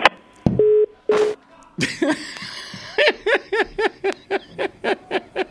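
Two short beeps of a telephone busy tone on the phone line, the call cut off. Then laughter sets in about two seconds in, in quick repeated bursts of about four a second.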